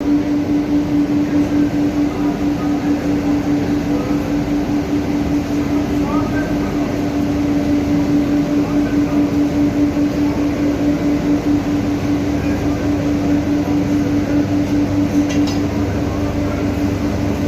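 Steady industrial machinery hum: one strong low tone held over a dense rushing noise, with a slight pulsing in the loudness.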